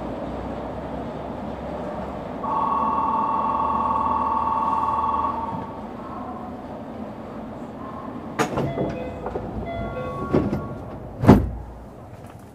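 Tokyo Monorail 2000 series train at a station platform: a steady hum, then a two-tone electronic buzzer held for about three seconds. Then come scattered clicks and knocks of the sliding doors, with one loud thump about eleven seconds in.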